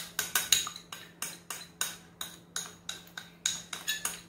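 A ceramic bowl being tapped over and over to empty cornflour out of it, giving short, sharp clinks at about three a second.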